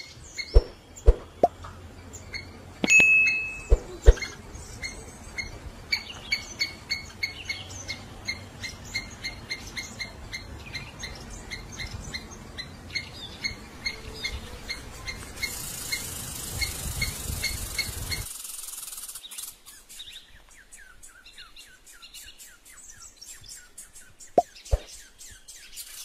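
Birds chirping in woodland: one small bird repeats a short high chirp about three times a second, with a few sharp knocks near the start. Partway through the sound cuts off abruptly to a quieter bed of scattered clicks and faint short chirps.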